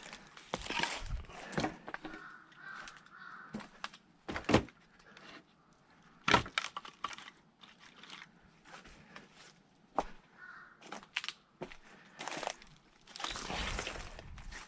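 Firewood being split by hand: sharp cracks as the blade strikes and splits the logs, the two loudest about four and a half and six seconds in, with knocks and scuffling of wood between strikes. Crows caw in the background.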